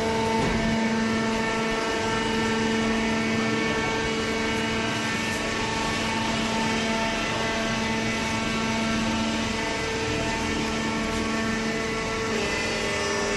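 Hydraulic baler's pump and motor running steadily, a constant hum with a pitched whine over it.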